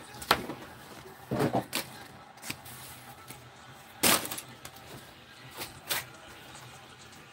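Trading cards being handled: several short rustles and taps as cards are shuffled and a stack is set down on a wooden desk, the loudest about four seconds in.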